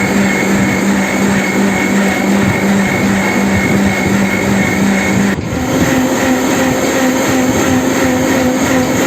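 Electric mixer grinder (mixie) running steadily, blending grapes with water into juice, with a high motor whine; about five seconds in the pitch steps up to a higher note.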